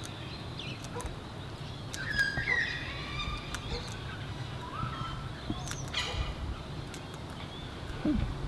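Sulphur-crested cockatoos giving short, soft gliding calls, loudest about two seconds in and again around six seconds in, with scattered sharp clicks in between.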